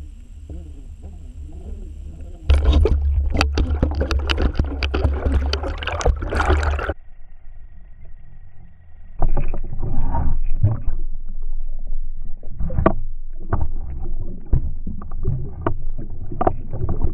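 Muffled knocks, clicks and water noise with a low rumble, heard underwater through a submerged camera. It comes in two loud stretches, with a quieter lull of about two seconds between them.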